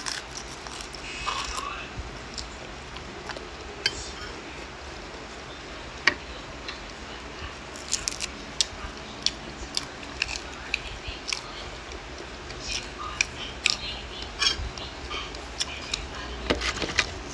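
Close-up eating sounds: crisp lettuce wrapped around corn tuna being bitten and chewed, giving many short crunches and mouth clicks, thickest in the second half.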